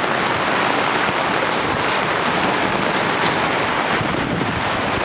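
Heavy rain pouring down in a thunderstorm, a loud, steady hiss.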